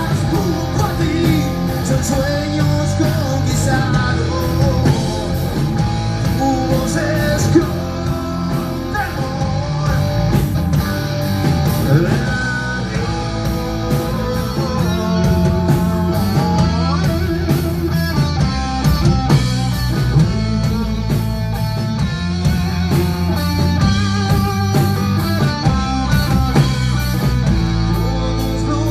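Rock band playing a song: electric guitar over bass and drums at a steady beat, with sung vocals in places.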